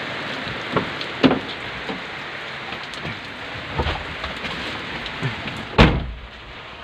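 Heavy rain falling on a vehicle's roof and windshield, heard from inside the cab, with scattered drops ticking close by. A loud thump about six seconds in, after which the rain is quieter.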